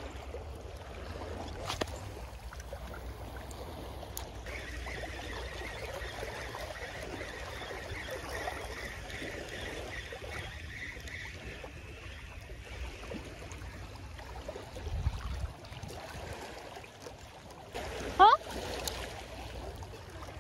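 Steady wash of surf and wind on the microphone. For several seconds a spinning reel whirs as a metal jig is wound in fast, and near the end there is one short, loud rising sound.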